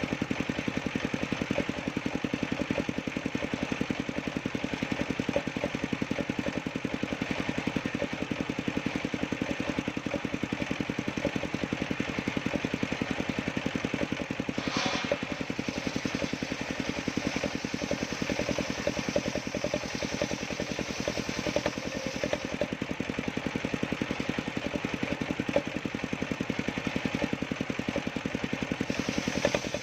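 Engine of a homemade sawmill running steadily, with a brief sharp sound about halfway through.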